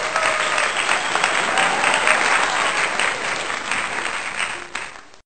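Crowd applauding, a dense patter of many hands clapping that fades over the last second and then cuts off.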